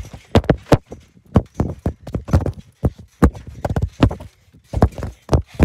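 Irregular thumps of people jumping on a trampoline, picked up by a phone bouncing on the mat, about two or three hits a second with a short lull about four seconds in.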